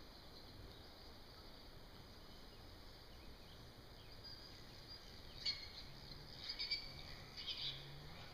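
Faint forest ambience: a steady high insect hum with a few short, high bird chirps in the second half.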